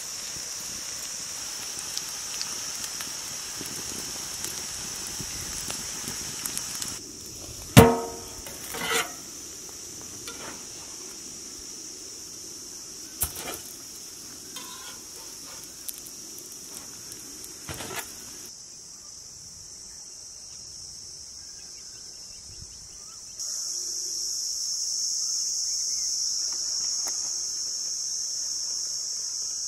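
Steady high-pitched chirring of crickets, with a few sharp clinks and knocks, the loudest about eight seconds in and ringing briefly.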